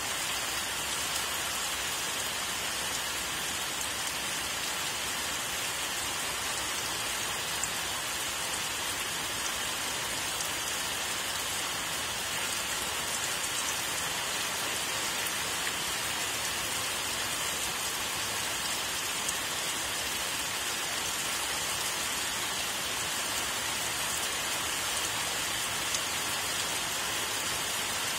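Steady rain falling: an even hiss with small scattered drop ticks through it.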